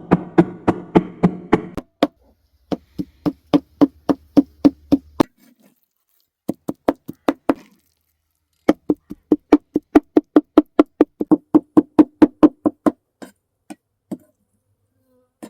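Knife chopping fast on a wooden cutting board: sharp knocks about five a second in runs of a few seconds, broken by short pauses, with a few single knocks near the end.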